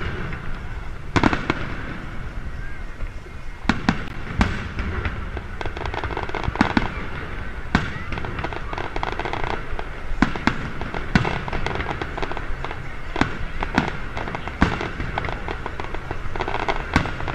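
Aerial fireworks shells bursting overhead in an irregular series of sharp bangs, several close together at times, over a steady background hubbub.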